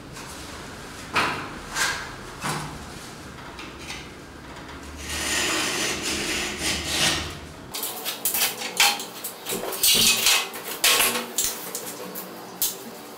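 A metal scoring tool scraping lines into dried plaster along a spirit level: rapid scratching strokes, most of them in the second half, with a few knocks of the tool and level against the wall in the first few seconds.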